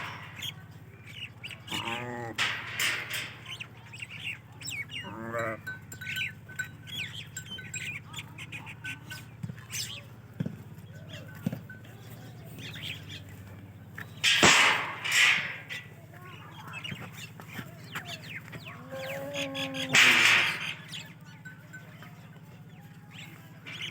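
Goats bleating a few times, each a wavering call, with a steady low hum beneath and small birds chirping. Two loud bursts of noise come midway and again near the end.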